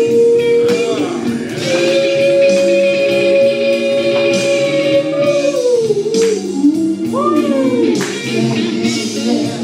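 A man singing long wordless notes into a microphone over backing music with guitar. About two seconds in he holds one long note for roughly three seconds, lets it slide down, then sings a few swooping runs.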